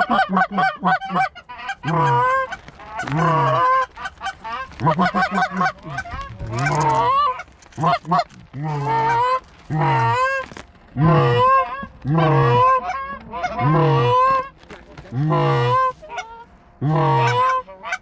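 Canada goose call blown close by: a string of loud honks about one a second, each breaking from a low note up to a higher one, with a quick run of clucks in the first couple of seconds.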